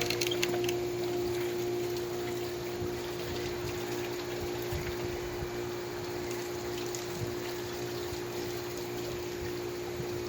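A pump running steadily with a constant hum, over a steady hiss of water. A few short clicks sound right at the start.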